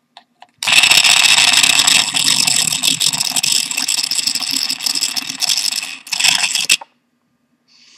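Small induction motor of a cheap slow juicer running with a loud rattle for about five seconds, then a short second burst. The rattle is the sign of its shaft wobbling in a slack, worn plastic bearing.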